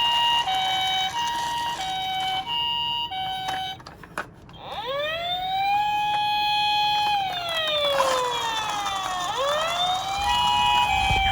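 Japanese ambulance two-tone 'pee-po' siren alternating high and low about twice a second. After a brief break it gives way to a police car wail that rises, holds, slowly falls and rises again. The two-tone siren comes back near the end.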